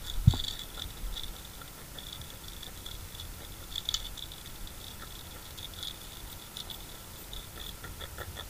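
Light scratching, rattling and clicking as a freshly caught small trevally (talakitok) and its hard lure are handled, with one sharp knock just after the start.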